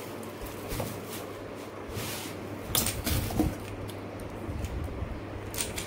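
Plastic packaging crinkling and rustling, with light knocks of parts being handled while a pressure washer and its coiled hose are unpacked from a cardboard box. Sharper crinkles come about two seconds in, around three seconds, and near the end.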